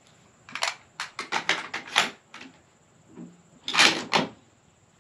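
Sharp mechanical clicks and knocks from a rifle being handled on a wooden shooting bench: a quick run of about ten over a second and a half, then a louder cluster about four seconds in. Not a gunshot.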